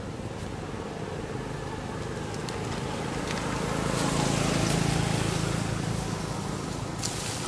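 A vehicle passing by on the road, its engine and tyre noise swelling to a peak about four to five seconds in and then fading. A brief click near the end.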